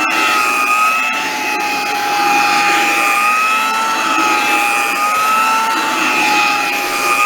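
Vintage Hamilton Beach hand vacuum cleaner running steadily, its motor whine wavering slightly in pitch.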